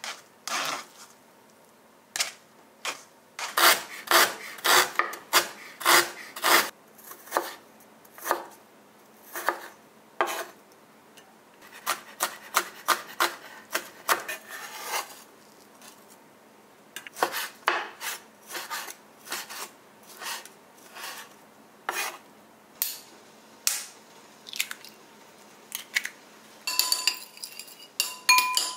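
Cleaver chopping garlic on a bamboo cutting board: irregular runs of sharp knife strikes on wood, several a second, with pauses between. Near the end, eggs in a glass bowl knock against the glass, which rings briefly.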